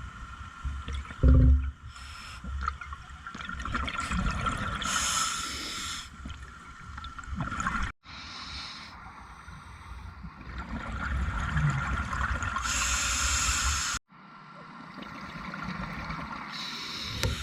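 Scuba diver breathing underwater through a regulator: hissing inhalations alternating with bubbling exhalations, over a faint steady high tone. A loud thump comes about a second in.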